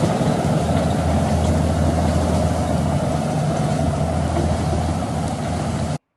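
Diesel engine of a Caterpillar Drott track loader running steadily at close range, cutting off suddenly near the end.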